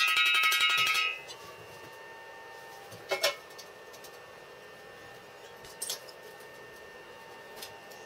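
Chipping hammer rapidly tapping slag off fresh arc welds on steel tube, the tube ringing with each blow; it stops about a second in. Then three single metal clinks as steel plates are set down on a steel welding table, the first the loudest.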